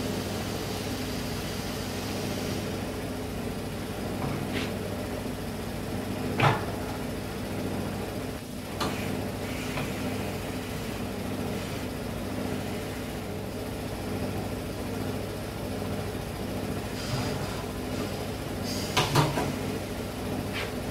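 A few sharp knocks and clanks of tools working a tyre bead loose from a spoked motorcycle rim, the loudest about six seconds in and a quick cluster near the end, over a steady low hum.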